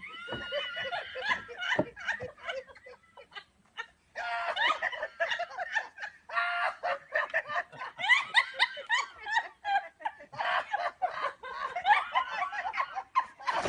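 People laughing and snickering in fits that stop and start, with short breaks between the bouts.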